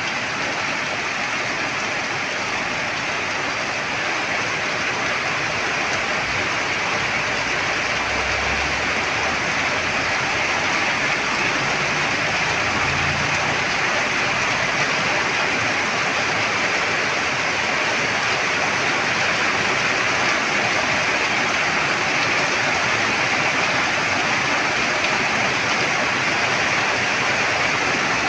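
Heavy rain pouring down in a dense, steady hiss that grows slightly louder as it goes on.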